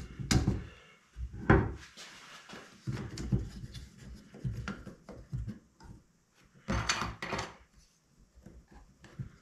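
A combination square and a 2x4 board being handled on a bench: a few sharp wooden knocks and clacks, with lighter rubbing and shuffling between them.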